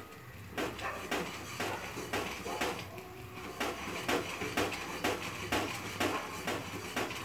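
Silicone spatula stirring a thick, thickening milk mixture in a nonstick kadai, scraping and knocking against the pan in repeated strokes about twice a second.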